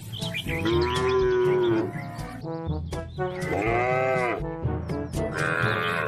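Cattle mooing: two long, arching calls about one and four seconds in, and a higher-pitched call near the end, over background music.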